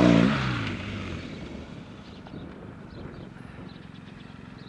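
A large adventure motorcycle's engine revs loudly as the bike passes close by, its pitch dropping. It then fades as the bike rides away.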